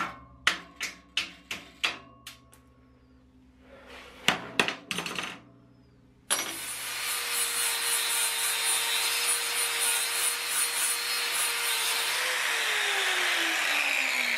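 A hammer strikes the edge of a steel plate about six times in the first two seconds. A little under halfway in, an angle grinder starts abruptly and cuts steady through the sheet steel, throwing sparks; its motor note falls near the end.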